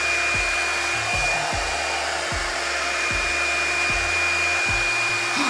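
EZ Detangler blow dryer running on its low heat setting: a steady rush of air with a thin, steady high whine.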